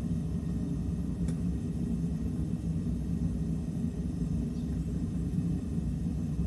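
Steady low roar of a gas forge burner running while a knife blade is heated for hardening.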